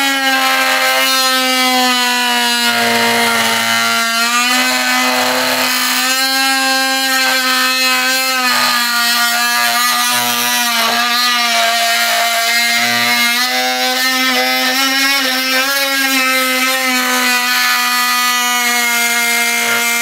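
HART 20V cordless oscillating multi-tool on its top speed setting of 6, plunge-cutting into a softwood board with a Fein universal metal-and-wood blade. A steady buzzing drone that wavers a little in pitch as the blade works through the wood.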